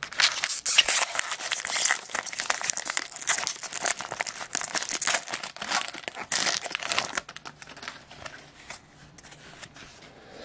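A foil wrapper on a Topps baseball-card jumbo pack being crinkled and torn open, the foil crackling loudly for about seven seconds. After that come quieter, scattered rustles and clicks as the stack of cards is handled.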